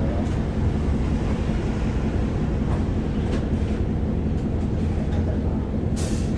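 Inside the cabin of an Isuzu Erga city bus (2DG-LV290N2): steady low rumble of its four-cylinder diesel engine and the road as it runs. A short hiss of air about six seconds in.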